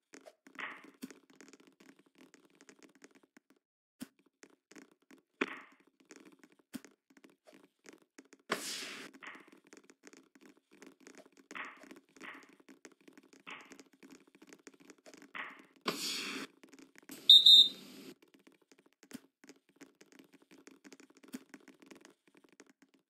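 Volleyball being struck several times during play, single sharp smacks a second or more apart over a low steady background hum. About three-quarters of the way through comes a short trilling referee's whistle blast, the loudest sound.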